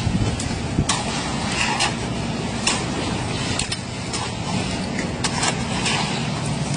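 Concrete mixer pump machine running: a steady engine drone with scattered sharp knocks.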